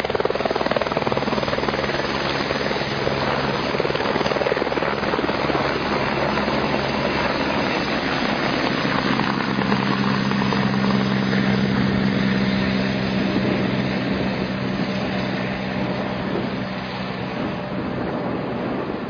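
Helicopter flying, its rotor and engine making a loud, steady drone with a low hum that fades slightly in the last few seconds.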